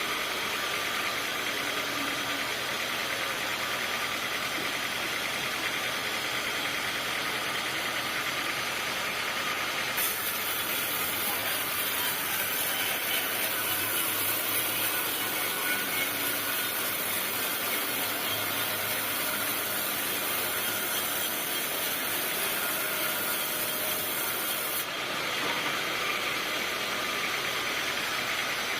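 Sawmill machinery running steadily. A high hiss joins in about ten seconds in and stops about fifteen seconds later.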